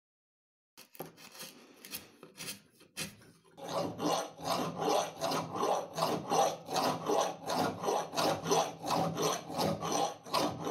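Hand file rasping a rope groove into a pulley: a few uneven strokes about a second in, then steady, even filing strokes about two and a half a second.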